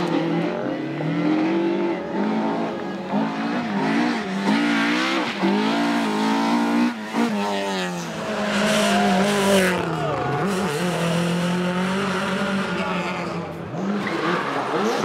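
Rally car engine revving hard, its pitch rising and falling over and over with throttle and gear changes.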